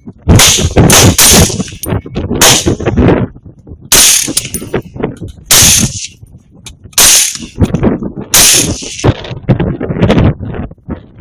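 Rifle shots fired in a rapid string, about one every second and a half, each followed by a long echoing tail.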